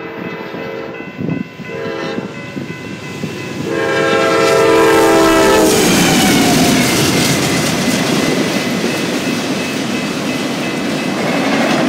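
Norfolk Southern GE C44-9W locomotive horn sounding as a fast freight train approaches: a short blast, then a long, loud blast that drops in pitch and cuts off as the locomotives pass about six seconds in. Then the locomotives and autorack cars rush by with a steady noise of wheels clacking over the rails.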